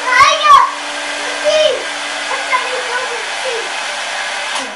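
Hair dryer blowing steadily with a steady hum, holding a balloon up in its airstream, then switched off suddenly near the end. A young child's voice squeals over it in the first second and again in the middle.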